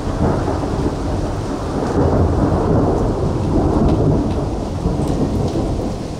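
Thunder rumbling for several seconds, growing louder about two seconds in, over steady rain.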